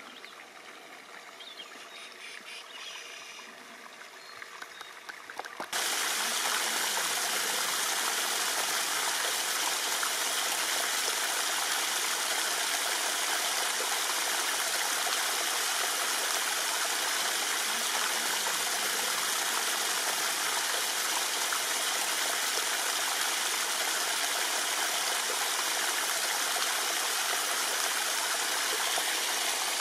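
Steady rush of running water, starting abruptly about six seconds in after a quieter stretch.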